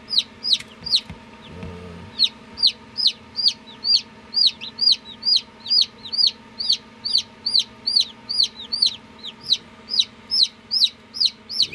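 Newly hatched chicken chicks peeping: a steady run of loud, high, downward-sliding peeps, about three a second, with a short pause about a second in.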